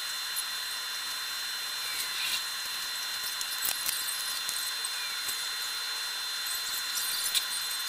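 A steady high-pitched whine over a constant hiss, with scattered faint clicks: ambient night sound fast-forwarded along with the time-lapse.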